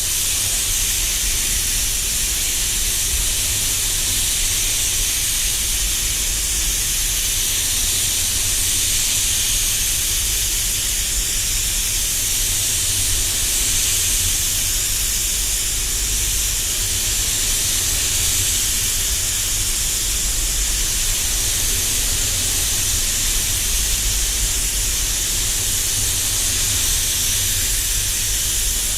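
Spray gun (Walcom Carbonio 360) hissing steadily while spraying clear coat, with a low steady rumble underneath.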